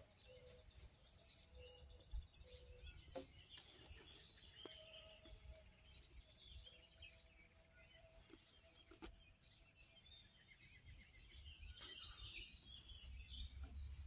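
Faint songbird calls in the background: a rapid high trill in the first few seconds, scattered chirps, and another high trill about ten seconds in. Low wind rumble on the microphone rises near the end.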